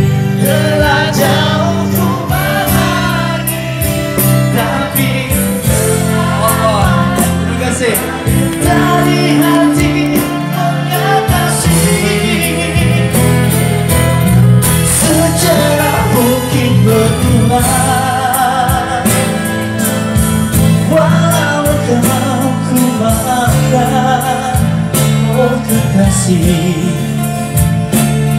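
Live acoustic band playing a Malay pop ballad: acoustic guitars and electric bass guitar, with singing over them.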